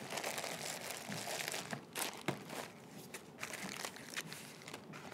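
Plastic packaging bags crinkling and rustling as they are handled, with irregular sharp crackles.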